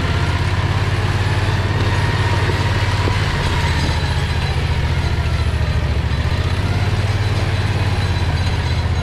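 Harbor Freight Predator 670 V-twin engine running steadily with an even low pulse, driving the go-kart along.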